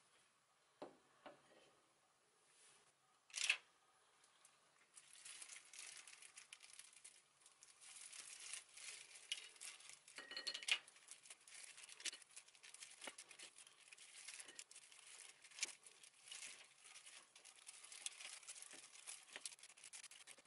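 Faint crinkling of a disposable plastic glove, with small clicks and taps as chocolate-coated balls are pulled off toothpicks and dropped onto a plate. A few separate knocks come in the first few seconds, before the steady rustling starts.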